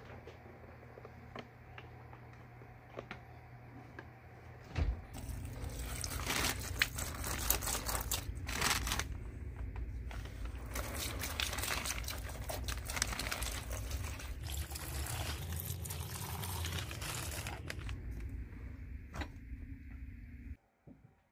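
Plastic tarp crinkling and rustling under handling while liquid is squeezed from a plastic bottle onto a rusty saw blade lying on it. The crackling starts about five seconds in and stops abruptly near the end.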